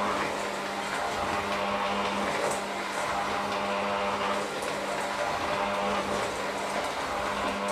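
Electric hand mixer running steadily, its beaters churning a thick mixture in a stainless steel bowl, with an even motor hum.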